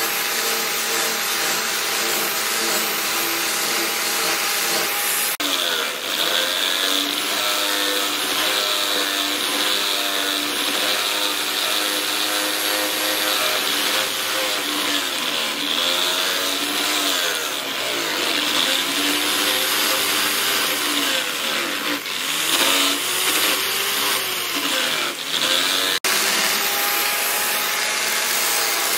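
Electric angle grinder grinding a leaf-spring steel machete blade. The motor whine sags in pitch and picks back up again and again as the disc is pressed into the steel, over a steady grinding hiss, and runs evenly at the start and near the end.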